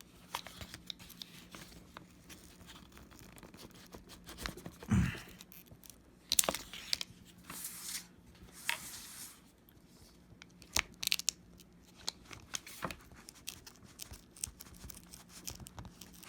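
Double-sided adhesive under a MacBook Pro battery cell crackling and tearing as a plastic pry tool works it loose, with scattered sharp clicks and scrapes of the tool and a single low thump about five seconds in.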